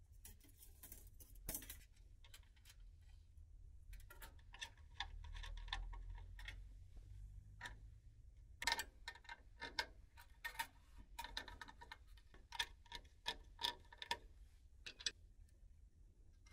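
Irregular light metallic clicks and taps from hand work on the front brake pipes, several a second at the busiest, some with a short ringing tone.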